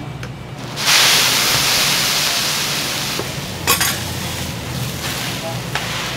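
Food frying on a hot okonomiyaki teppan griddle: a loud sizzle bursts up about a second in and slowly dies down, with a sharp clack in the middle.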